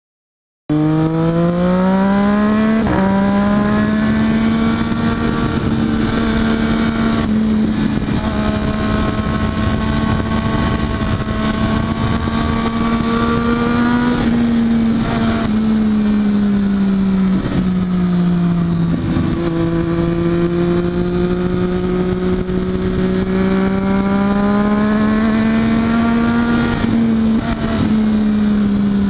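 Triumph Daytona 675R's three-cylinder engine running at sustained revs. It starts abruptly about a second in with a quick climb in pitch, then holds steady, easing down and back up slowly a couple of times.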